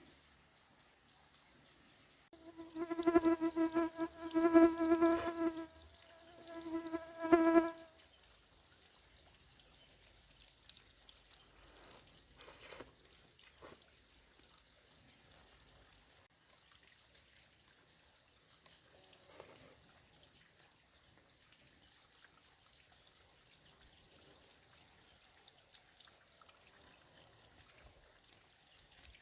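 An insect buzzing close to the microphone, a steady hum of one pitch in two spells, about three seconds and then about a second and a half long. A few faint knocks follow against quiet background.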